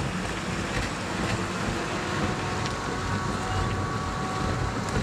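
Steady rumbling, rushing noise of iron-ore pelletizing machinery, with a rotating balling drum tumbling wet concentrate into pellets. Faint steady tones run through the middle.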